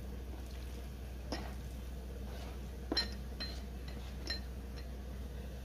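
About four light clinks of a china plate and spoon knocking against the rim of a stainless steel mixer-grinder jar as fried onions are scraped in, a couple of them with a short metallic ring.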